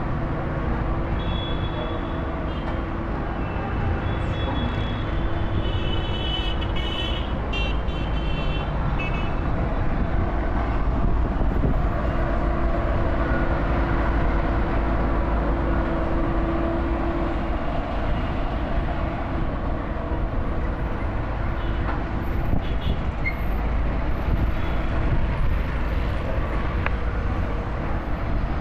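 Road roller's diesel engine running steadily under way, a continuous low rumble. Intermittent high-pitched tones sound over it in the first ten seconds or so.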